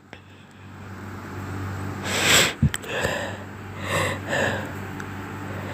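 A sick person sniffing and breathing in, about four short breaths, between sneezes, over a low steady hum.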